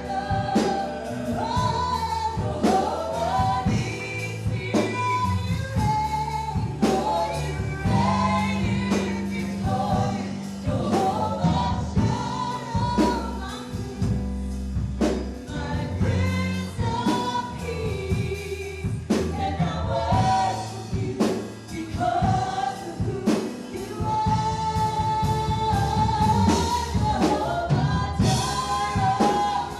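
Live gospel worship music: a group of singers with a band, with steady drum hits under a bass line.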